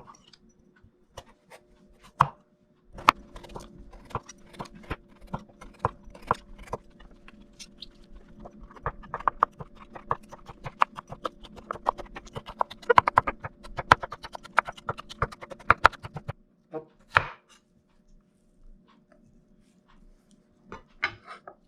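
Kitchen knife chopping a carrot into thin sticks on a cutting board: a long run of sharp, irregular knocks that grows quicker and denser in the middle and stops about three-quarters of the way through, with only a few scattered knocks after.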